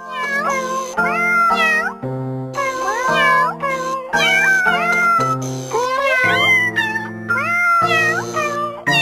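A novelty music track made of pitched cat meows over held backing chords: the meows rise and fall in pitch, about two a second, in time with the chord changes.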